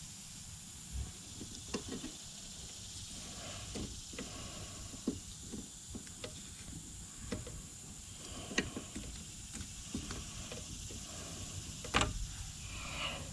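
Handling noises from pulling speaker wire through a vehicle's body and trim: scattered light clicks, scrapes and rustles, with a sharper knock near the end, over a steady faint hiss.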